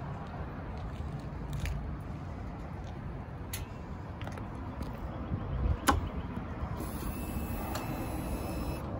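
Steady low outdoor rumble with the motorcycle's engine not running, a few light clicks, and one sharp click a little past the middle, followed by a faint high whine of about two seconds that stops sharply.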